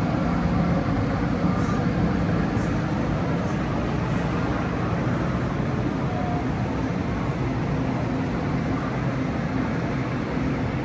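Steady rumble and low hum of a train.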